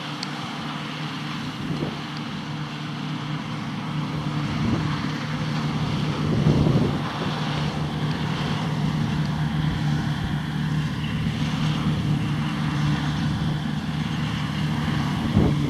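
John Deere 2264 combine harvester running at a steady pitch, a constant hum.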